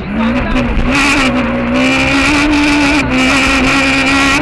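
Peugeot 306 Maxi rally car's naturally aspirated four-cylinder engine at high revs under hard acceleration, heard from inside the cabin. After a short dip right at the start, the pitch climbs over the first couple of seconds and then holds high.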